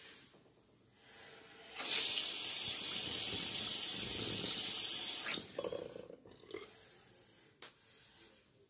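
Bathroom sink tap turned on, running into the basin for about three and a half seconds, then shut off sharply.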